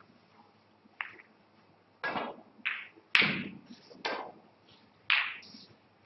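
Snooker balls clicking against each other and knocking off the cushions: about seven separate sharp knocks, each with a short ringing tail, the loudest about three seconds in.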